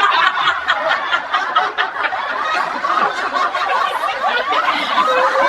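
Several women laughing hard together, overlapping chuckles and snickers.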